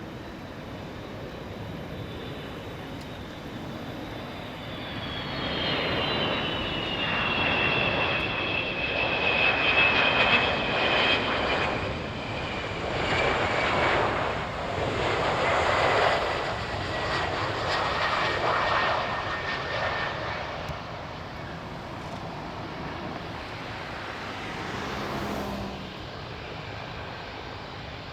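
Four-engine military jet passing by: the jet noise swells to a peak and fades, while its high engine whine glides steadily down in pitch.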